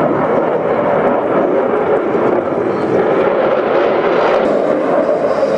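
Sukhoi Su-35 fighter's twin afterburning turbofans, a loud, steady jet noise as the aircraft flies a tight banking display pass overhead.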